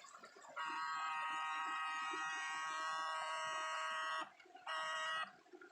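Electrofishing unit giving a steady, high electronic buzzing whine that switches on, runs about three and a half seconds, cuts off, then sounds again briefly for about half a second.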